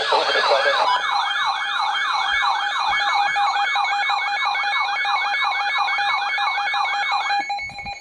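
NOAA weather radio alert alarm for a flash flood warning: a falling siren sweep repeating about three times a second over a steady tone. The sweeps cut off near the end, and the tone stops shortly after.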